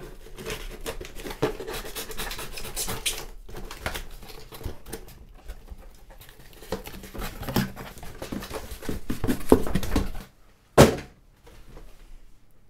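A cardboard parcel being cut open with a knife and its flaps pulled apart, with an irregular run of scraping, tearing and rustling of cardboard and packaging. About 11 seconds in, after a short quiet spell, comes one loud, sharp thump.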